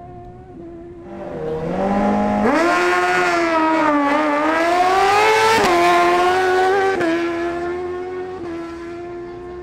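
Honda CBR1000RR inline-four sport bike accelerating hard on a drag run. The engine note climbs steeply, drops sharply a little past halfway at an upshift, then holds and fades away.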